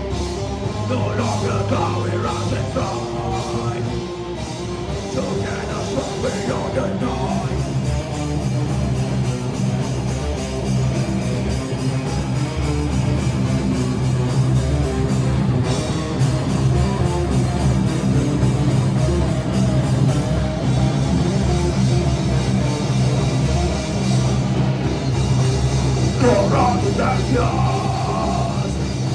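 Heavy rock band playing live: distorted guitars and a pounding drum kit, with vocals over the first few seconds and again near the end.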